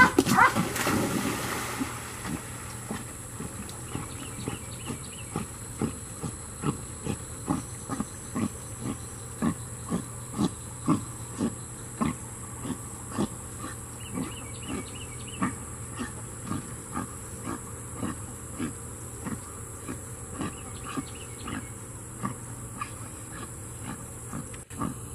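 A Labrador retriever splashes into a pond, then swims out breathing hard in short, even puffs, about two a second. A steady high insect drone runs underneath.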